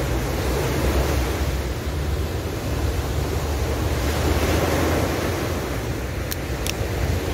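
Sea surf: waves breaking and washing up a shore, with wind rumbling on the microphone. The surf swells about four seconds in, and two short clicks come near the end.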